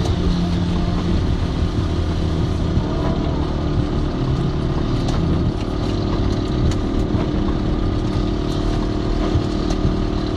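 Steady engine hum and tyre noise on a waterlogged road, heard from inside a moving car's cabin, with scattered raindrops ticking on the windshield and roof.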